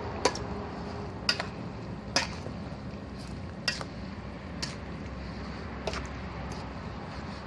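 A metal spoon knocking against a stainless steel mixing bowl while tossing a glass-noodle salad, about six sharp clinks at uneven intervals.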